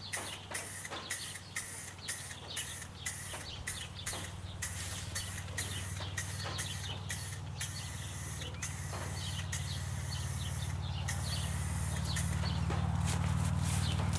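Aerosol can of silver spray paint hissing in short bursts, two to three a second, then in longer sprays as the pole gets its coat. A steady low hum grows louder toward the end.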